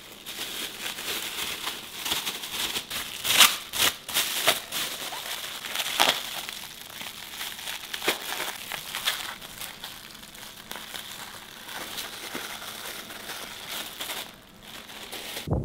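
Thin clear plastic food bags crinkling and rustling as they are stuffed with noodles and vegetables and twisted shut, with sharper, louder crackles a few seconds in.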